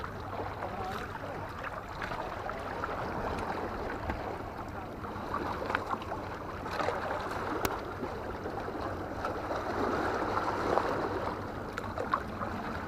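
Seawater lapping and sloshing against a concrete breakwater and its rocks, a steady wash with a few faint clicks.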